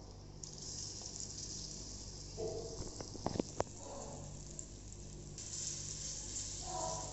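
Hot oil sizzling in a miniature kadai as small mango pieces are added and stirred, with a few sharp clicks of the spoon against the pan about three seconds in.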